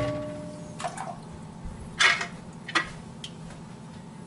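Aluminium pressure canner lid being lifted off and handled: a few metallic clanks and knocks, with a brief ringing tone at the start and the loudest knock about two seconds in.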